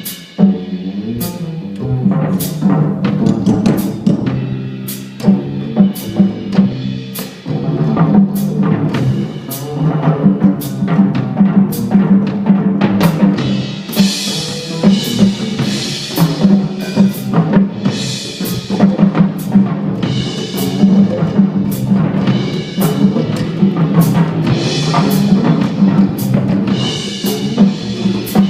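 A school jazz big band playing live: horns and bass sustain notes under frequent sharp drum-kit and cymbal hits, with the cymbals and horns growing brighter and denser about halfway through.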